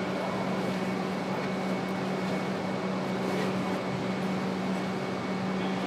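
Steady mechanical hum and hiss of a factory hall, with a constant low drone.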